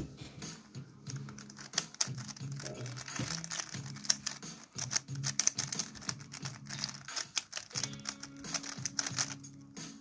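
Quick, irregular plastic clicking of a 3x3 speed cube's layers being turned during a solve, with one louder clack right at the start, over background music.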